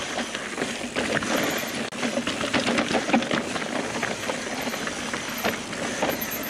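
Mountain bike clattering and rattling as it rides down a rough, rocky trail, with a rapid, irregular run of knocks from the frame, chain and tyres striking rocks and roots, heard through an action camera's microphone.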